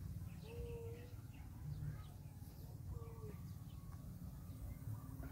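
Faint outdoor birdsong: small chirps and two short, soft coos, about half a second and three seconds in, over a steady low rumble.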